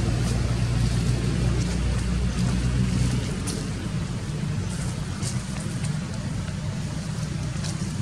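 Steady low hum of an engine running nearby, easing off about three seconds in.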